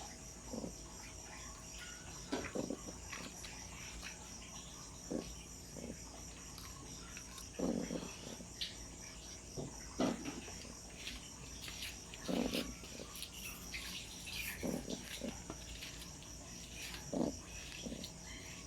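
Puppy snoring in its sleep: short snores about every two seconds, some coming as quick doubles, over a steady high-pitched background tone.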